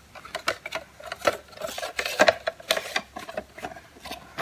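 A plastic tape reel and its box being handled: irregular clicks, taps and light rattles, with a short rustle about two seconds in.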